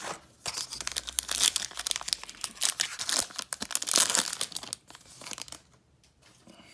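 Trading card pack wrapper being torn open and crinkled by hand: dense, crackly rustling for about five seconds, dying away near the end.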